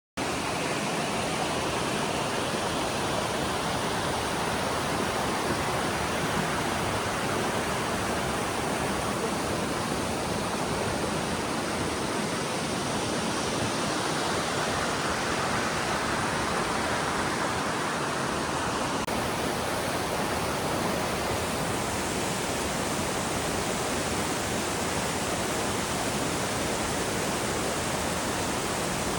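Waterfall: water rushing steadily.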